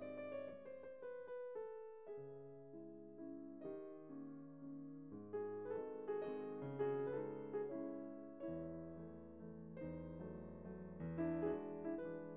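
Background piano music: single notes and chords struck and left to fade, with a falling run of notes near the start.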